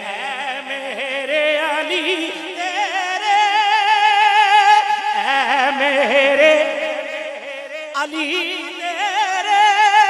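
A man sings a wordless melismatic passage of an Urdu naat into a microphone. He holds long notes with wide, wavering vibrato and ornaments, and breaks off briefly near eight seconds before carrying on.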